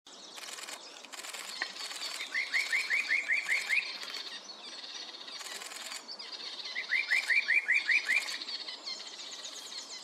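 Birds singing: one bird gives two runs of about eight quick rising whistled notes, each run lasting about a second and a half, over steady higher-pitched chirping from other birds.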